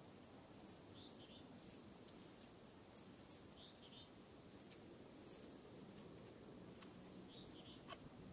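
Faint call of a small songbird: a quick run of very high notes dropping to a few lower notes, given three times about three seconds apart. Scattered soft ticks and a low, steady background rumble sit under it.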